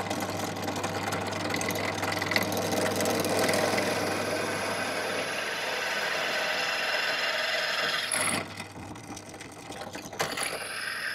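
Benchtop drill press motor running steadily while drilling a hole in a parallel jaw clamp's head for a grub screw; the running sound drops away sharply about eight seconds in.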